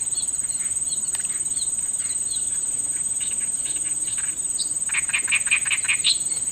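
Insects droning in one steady high-pitched band, with short chirping calls over it; about five seconds in, a fast, louder run of chirps begins.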